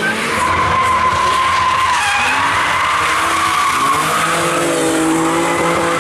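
Drift cars sliding sideways at high revs, engines running hard and tyres spinning and screeching. A high squeal is held through the first couple of seconds.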